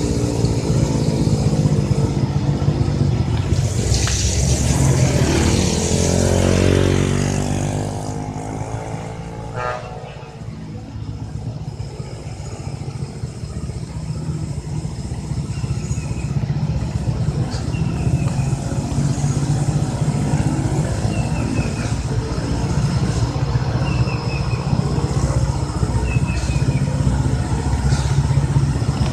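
Heavy diesel lorry engines pulling uphill with a steady low drone. A few seconds in, a vehicle passes close, its pitch sliding down as it goes by.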